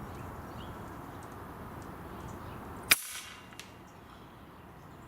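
A single air rifle shot about three seconds in, a sharp crack with a short ring, followed by a faint tick about two-thirds of a second later. Low wind noise runs on the microphone before the shot.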